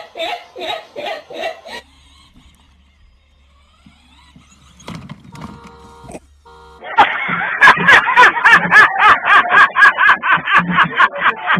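A woman laughing in rapid bursts, cut off after about two seconds, then a quiet stretch of a few seconds. About seven seconds in, a man's loud, wild laughter starts, repeated in fast, even bursts.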